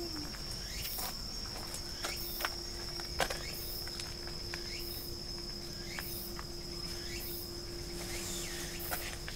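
Insects chirping in chorus: a steady high trill with a pulsing call about once a second, over a steady low hum.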